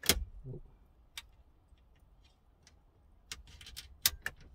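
Thin metal radio removal keys being pushed into the slots of a VW Golf MK4 factory radio: sharp metal clicks as the keys catch in the radio's retaining clips. A loud click right at the start, another about a second in, then a run of clicks around three to four seconds in.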